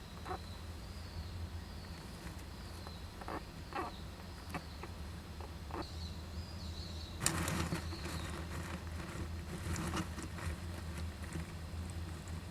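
Japanese giant flying squirrels moving about inside a wooden nest box: a burst of scratching and rustling about seven seconds in, which goes on in bursts for a few seconds. A few faint short clicks come before it. A steady low hum and a faint high wavering tone run underneath.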